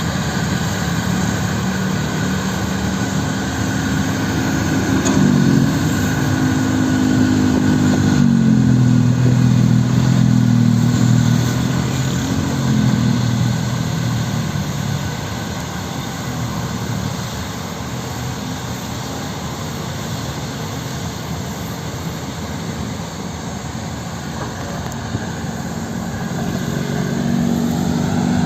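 Heavy earthmoving machine's diesel engine running, revving up a few seconds in and holding high for several seconds, then easing back to a lower steady run before rising again near the end.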